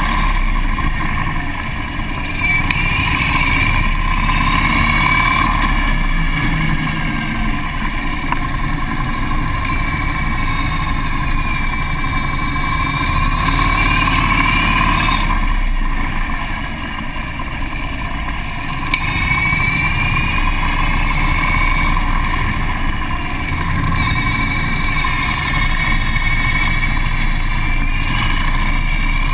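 Harley-Davidson police motorcycle's V-twin engine running at low riding speed, its revs rising and falling as it works through tight turns, easing off briefly around the middle.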